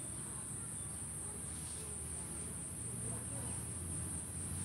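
Background noise in a pause between spoken sentences: a steady high-pitched whine with a low hum beneath it.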